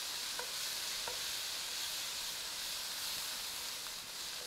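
Minced garlic frying in olive oil in a wok: a steady sizzle, with the wooden spatula stirring and giving a couple of light taps against the pan in the first second or so.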